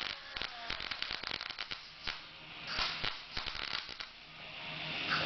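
Welding arc crackling and spitting in short, irregular bursts as tack welds are laid on sheet-metal body panels, fading out about four seconds in.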